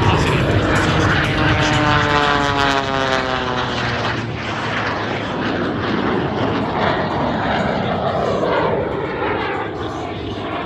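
Airplane engine running loud as the aircraft flies past, its pitch dropping steadily as it passes about two to four seconds in.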